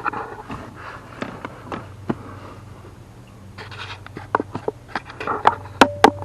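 Scattered clicks, taps and scrapes of hands and tools being handled in the footwell under a car's dashboard, over a steady low hum. The sharpest clicks come in a quick cluster near the end.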